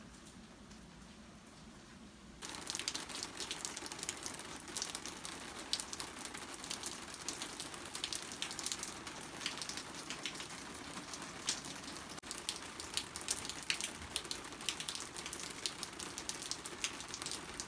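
Steady rain, faint at first, then abruptly much louder and closer about two and a half seconds in, with many separate drops striking close by over a continuous hiss.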